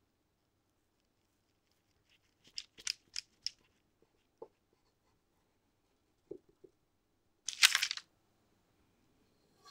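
A knife cutting down through a caramel-glazed castella sponge cake: four short crisp strokes about two and a half seconds in, then a few soft taps. Near the end comes a louder crackly rustle of the parchment paper underneath as the cut halves are pulled apart.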